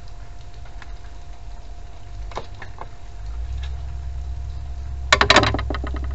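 Hand work on a knee scooter's kneeboard mount: a few scattered clicks, then a short burst of rapid clicking and rattling about five seconds in, over a steady low rumble.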